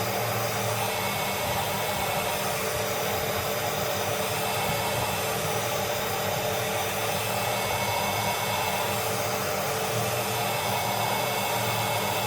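A hair dryer blowing steadily at an even pitch, drying the lace-wig glue until it turns tacky.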